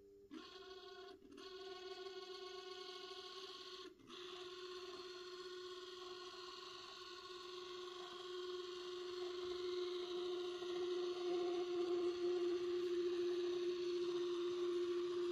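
Piko BR 62 TT-scale model locomotive's drive whining with a steady, buzzing drone, cutting out briefly twice near the start and growing louder over the second half. The noise came on after the locomotive's running-in phase, and the owner finds it massive.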